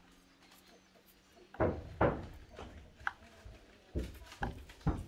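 A run of irregular dull knocks and thuds, about seven in three and a half seconds, starting about a second and a half in, with the two loudest close together near the start of the run.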